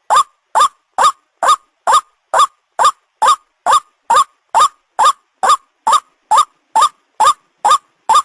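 White-breasted waterhen (ruak-ruak) call played as a hunting lure: one short, loud, rising call repeated at an even pace of about two a second, with silence between the calls.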